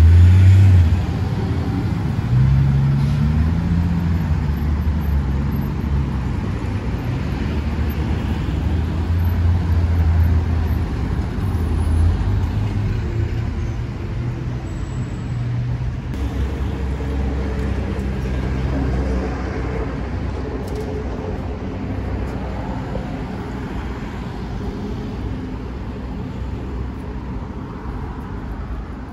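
Street traffic: motor vehicles passing by, a low engine rumble that swells and fades as they go, loudest in the first second.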